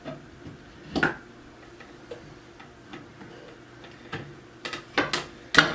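Scattered knocks and clicks of wooden dowels and a furniture panel being handled and fitted together. There is a sharp knock about a second in, a few light clicks after it, and several louder knocks near the end.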